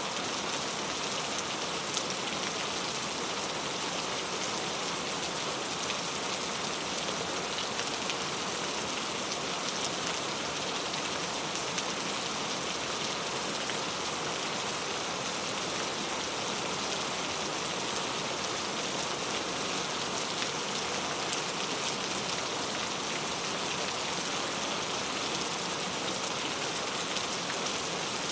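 Steady rain falling and pattering on a surface, an even hiss with scattered faint drop ticks.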